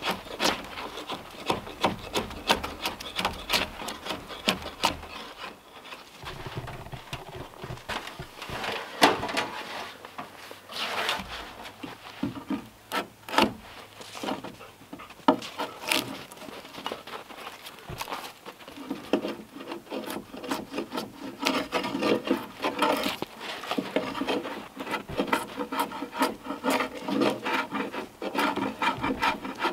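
A drawknife scraping bark off a log in quick strokes, then an axe chopping into the top of a log: sharp single strikes about two seconds apart, followed by quicker, lighter strokes.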